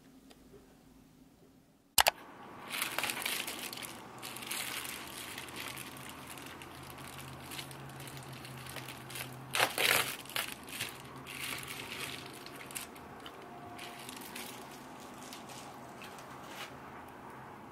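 Crinkly plastic packaging being handled and unwrapped, rustling with many small crackles and a louder flurry about ten seconds in, after a single sharp click about two seconds in.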